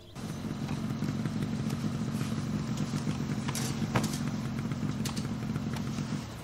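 Steady low rumble of a running vehicle engine, with a few sharp clicks and knocks around the middle. It starts abruptly and cuts off abruptly.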